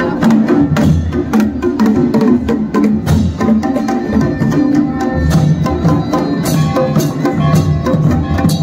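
Kumaoni folk processional band playing: dhol and other hand drums beating a fast, dense rhythm over steady piped tones, typical of a masakbeen bagpipe.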